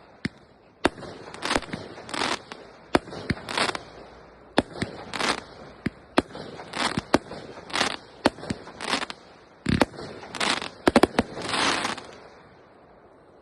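Fireworks going off in quick succession: sharp bangs, one or two a second, many followed by a short crackling burst, with a tight cluster of bangs near the end before the display falls quiet.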